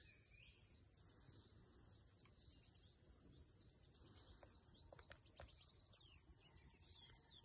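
Crickets keep up a steady, high-pitched chorus in summer grassland, with short chirps repeating above it and a few faint ticks.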